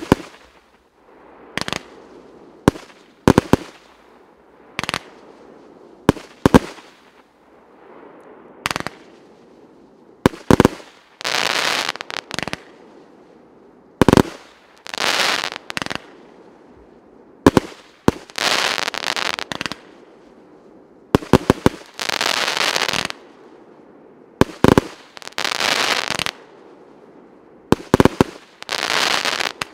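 A 300-shot 1.2-inch firework battery firing: sharp reports of shots launching and bursting, a second or a few seconds apart. From about ten seconds in, several bursts are followed by about a second of dense crackling.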